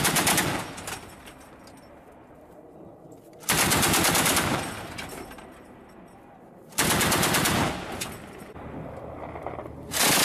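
Truck-mounted twin-barrel anti-aircraft gun firing short bursts of rapid shots, each about a second long, with echo rolling away between them. One burst is ending at the start, another comes about a third of the way in, a third about two-thirds in, and a fourth begins at the very end.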